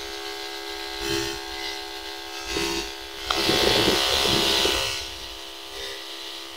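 Backpack sprayer's electric pump motor humming steadily while spraying herbicide on weeds, with a louder rushing, hissing noise from about three and a half to five seconds in.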